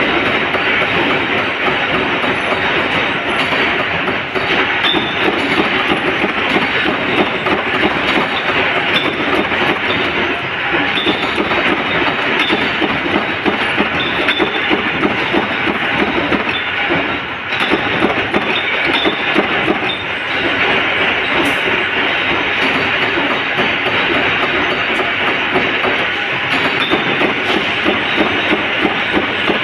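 Flywheel-driven mechanical power press running continuously, its ram stamping steel strip in a fast, steady clatter of metal knocks.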